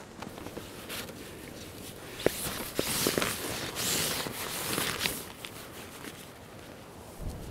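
Nylon camping gear rustling and crinkling as it is handled: a stuff sack, and a sleeping mat being pushed into a bivvy bag. The rustling is loudest in the middle few seconds, with a few sharp clicks.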